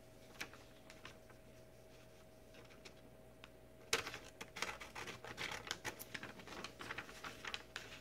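Light handling noise: a few isolated soft clicks, then from about four seconds in a quick, irregular run of small scratches and clicks as paper and small parts are handled.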